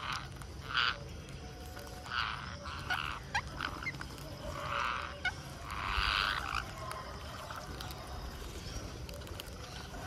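Rose-ringed parakeets calling: about six short, noisy calls spread over the first two-thirds, the longest and loudest about six seconds in, with a few sharp clicks in between.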